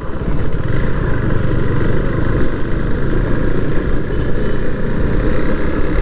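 KTM motorcycle running on the move: a steady engine hum under a continuous rush of noise.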